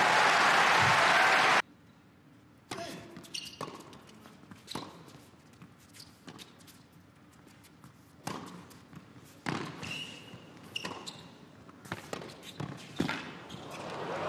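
Crowd applause in an indoor arena that cuts off after about a second and a half. Then a tennis ball is bounced before the serve and struck back and forth by rackets as a series of sharp pops, with a couple of short high squeaks. Applause swells again near the end.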